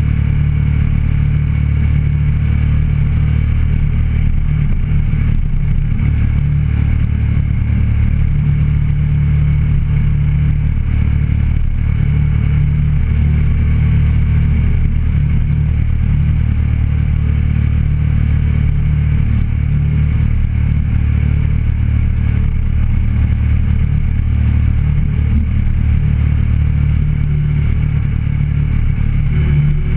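Motorcycle engine running at a steady cruise while the bike rides along, with an even, unchanging drone.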